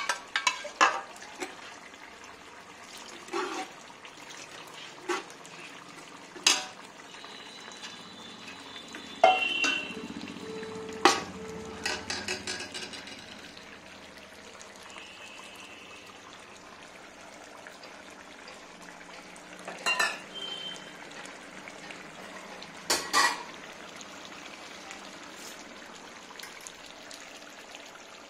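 Steel ladle knocking and scraping against an aluminium pot as a meat curry is stirred, over a steady low sizzle from the pot. The sharp metal knocks come scattered, a cluster of them about ten seconds in and two more later on, with a brief ring after some strikes.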